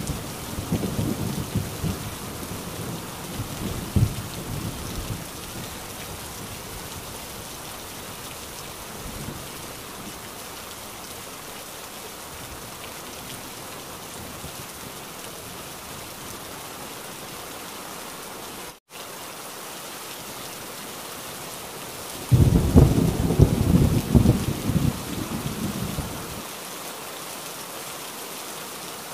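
Steady heavy rain with rolling thunder: a low rumble dies away over the first few seconds, and another rumble about three-quarters of the way through lasts about four seconds and stops abruptly. The sound cuts out for a split second about two-thirds of the way through.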